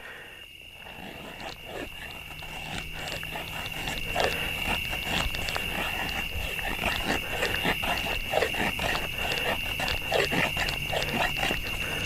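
Carbon-steel blade of an Imperial pocket knife carving shavings off a stick of willow: a run of short, quick scraping cuts that grow louder over the first few seconds, over steady chirping crickets.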